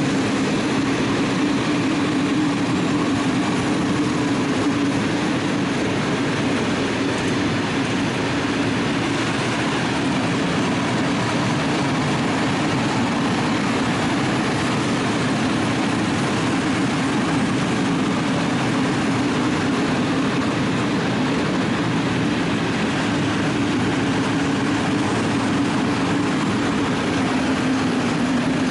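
Freight train of open-top wagons rolling steadily past: a continuous rumble and rattle of wheels on the rails that stays at one level throughout.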